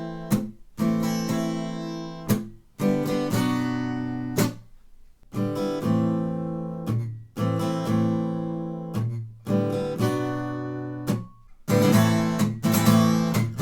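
Acoustic guitar strummed in the galop pattern: triple strokes, down-up-down, with the third stroke accented, moving between the Am and Bm chords. The chords keep breaking off briefly where the strings are damped for the chord change.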